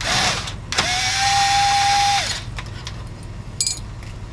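Power screwdriver backing screws out of a printer's board panel: a short spin, then a steady whine of about a second and a half that winds down at the end. A brief light rattle follows near the end.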